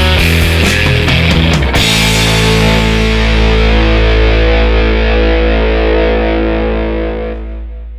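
Rock music with distorted electric guitar. About two seconds in, it lands on a final held chord that rings on and slowly fades out.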